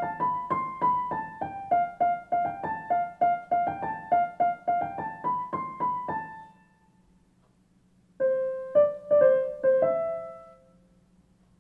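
Background piano music: a quick run of evenly spaced notes, about four a second, that stops about six seconds in, then after a brief silence a few more notes resume.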